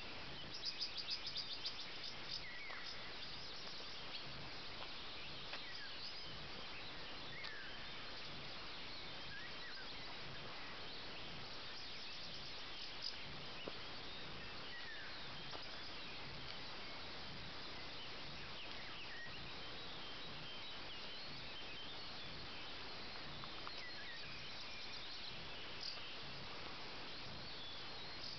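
Rural outdoor ambience: a steady hiss with scattered bird calls and chirps, and a quick run of chirps about a second in.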